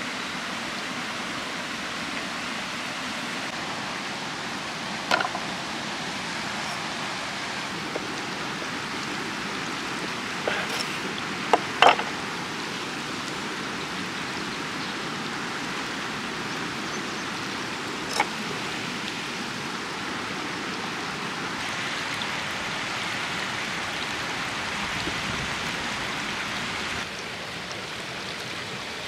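Steady rush of a flowing stream, with a few short sharp knocks, two of them close together near the middle.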